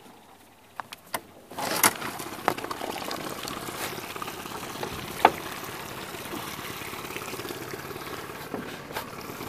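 1996 Mercury 9.9 hp four-stroke tiller outboard running very quietly as the boat gets under way, with water rushing and splashing against the aluminum flat-bottom hull. The sound comes up suddenly about a second and a half in, after a few sharp clicks.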